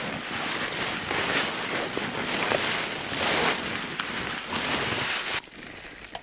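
Nylon down booties rustling as they are pulled on over the feet, a hissing swish that swells and eases unevenly. It stops abruptly about five seconds in.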